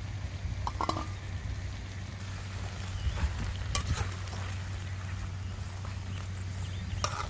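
Sweet potato chunks sizzling in caramelized sugar syrup in a metal pan over a wood fire while a metal spoon stirs them, with a few sharp metallic clinks of spoon or lid against the pan.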